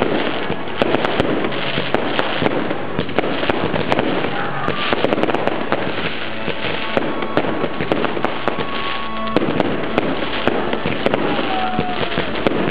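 Fireworks display: a dense, continuous run of bangs and crackling from bursting aerial shells and launches, with a couple of short whistles.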